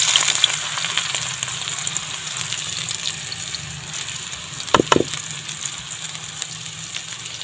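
Sliced green-onion whites dropped into hot oil in a karahi, sizzling: loudest as they hit the oil, then settling into a steady frying hiss. Two short knocks a little under five seconds in.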